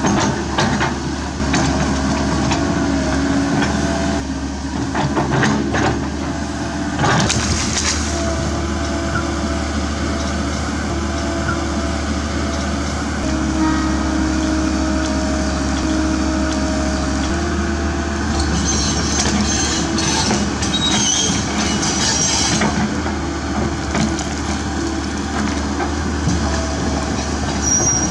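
Komatsu PC130F excavator's diesel engine and hydraulics running under load while the bucket works against a tree stump. The steady engine tone shifts pitch a couple of times, and there are sharp cracks of splitting roots and wood in the first third, then high squeals in the middle.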